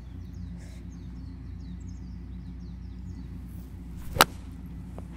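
Golf pitching wedge striking the ball off the tee: a single sharp click about four seconds in, the thin sound of a topped shot.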